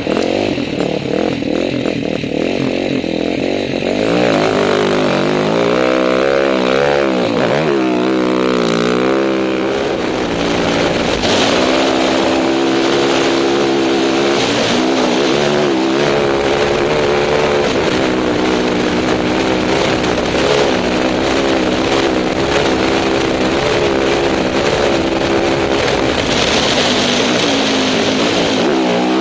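Rally motorcycle engine running hard off-road, its revs rising and falling again and again as the rider shifts gears and rolls on and off the throttle, with wind noise on the onboard microphone.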